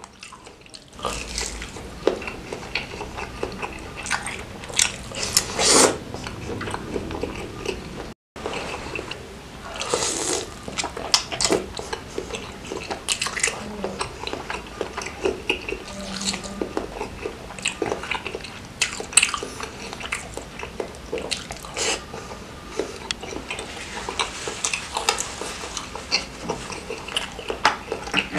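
Close-miked eating sounds: a man biting and chewing mouthfuls of meat-filled bakso meatball and noodles in spicy soup, with many short wet mouth clicks and smacks.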